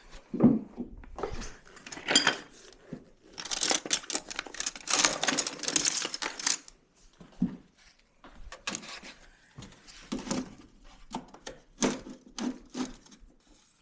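Metal sockets and hand tools clinking and rattling as they are rummaged through and picked out, with a dense stretch of clatter in the middle.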